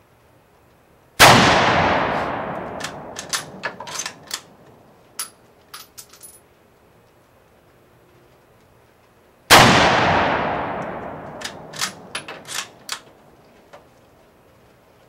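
Two rifle shots from an M44 Mosin-Nagant carbine in 7.62x54R, about eight seconds apart, each ringing out in a long echoing tail. After each shot comes a quick run of sharp metallic clicks and clacks as the bolt is worked to chamber the next round.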